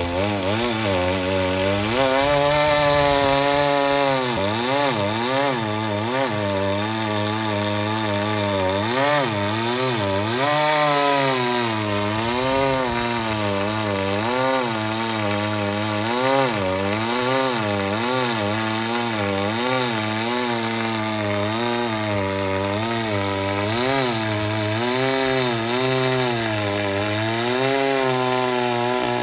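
Two-stroke chainsaw running continuously through wood, its engine pitch rising and falling again and again as it works the cut.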